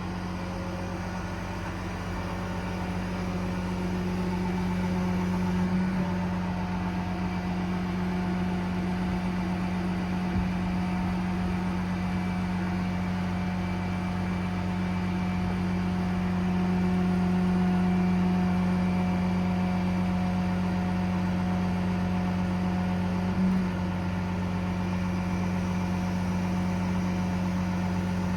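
Paccar PX9 diesel engine of a Kenworth T370 running steadily with a low hum, swelling a little in loudness midway.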